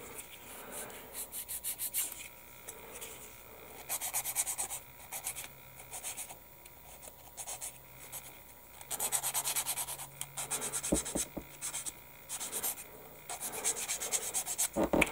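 Sanding stick rubbed back and forth on the edge of a small polystyrene kit part. It goes in bursts of quick strokes with short pauses between, cleaning a bump off the mating edge so the parts fit.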